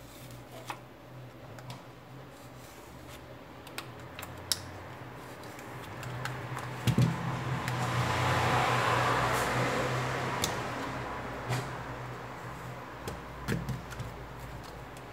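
Plastic opening pick clicking and scraping against the edges of a Samsung Galaxy J7 Core smartphone as it is pried open: scattered light clicks over a low steady hum. A soft rushing noise swells up about six seconds in and fades away over the next several seconds.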